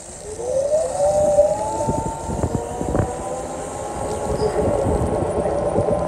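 Emergency vehicle siren on a city street, winding up in pitch over about a second and then holding a steady high wail, over low traffic rumble. A short knock sounds about halfway through.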